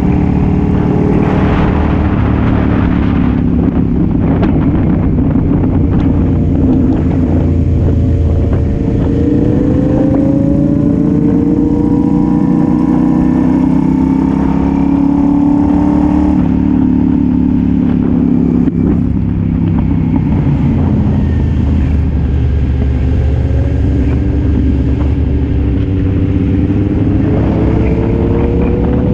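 Sport motorcycle with an aftermarket exhaust, heard from a camera mounted on the bike at road speed over steady wind noise. The engine pitch climbs as it accelerates, drops back about two-thirds of the way through as it slows, and climbs again near the end.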